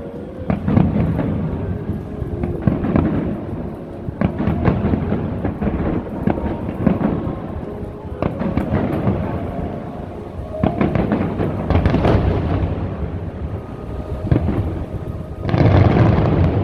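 Aerial fireworks shells bursting one after another, booms and crackles rolling and echoing, with music playing underneath. A heavier, louder burst comes near the end.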